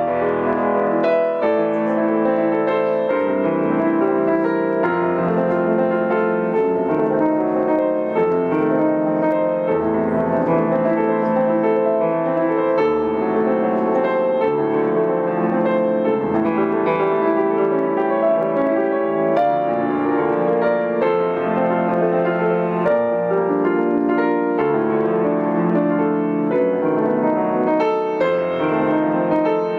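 Grand piano played solo: a continuous stream of notes at an even level, with no breaks.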